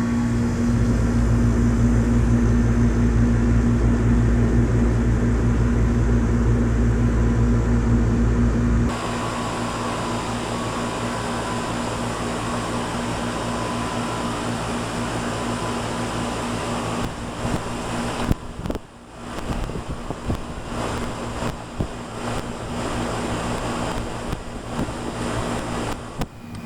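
1995 Tempstar 5000 3-ton central air conditioner's outdoor unit running steadily in its first minutes after sitting idle for months, its Copeland reciprocating compressor humming under the condenser fan. About nine seconds in, the sound changes abruptly to a lighter, less bassy hum. From about seventeen seconds on it is broken by uneven bumps and a brief dip.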